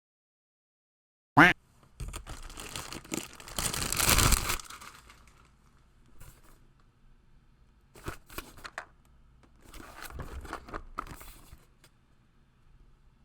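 Packaging being torn and crinkled, in fits and starts: a sharp rip about a second and a half in, a longer rustle that is loudest around four seconds, then softer rustling later on.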